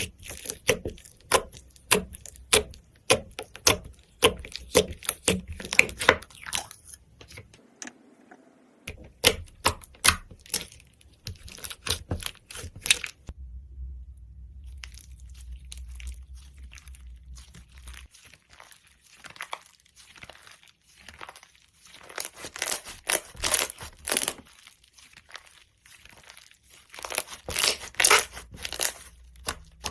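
Slime being squeezed and pressed by hand, giving runs of sharp crackling pops and clicks, with a quieter stretch partway through.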